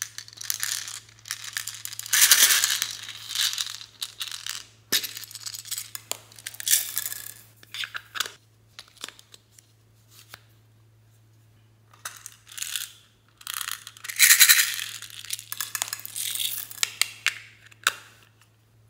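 Hard plastic toy cases handled and worked open by hand: scraping, clicking and rattling of plastic in several bursts, with a quieter stretch about halfway through.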